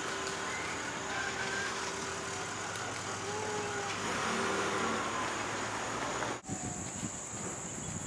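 Outdoor ambience: a steady hum of road traffic with a few faint bird calls, then, after an abrupt cut about six and a half seconds in, a steady high-pitched insect buzz.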